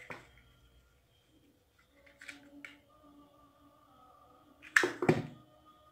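Two sharp knocks about five seconds in, from a hot glue gun being handled and put down on the tabletop while a satin ribbon bow is being glued, after a few faint handling clicks.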